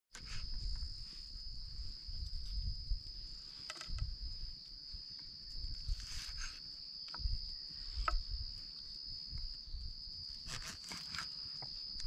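Insects making a steady high-pitched drone, one unbroken tone, with scattered light clicks and knocks and a low rumble underneath.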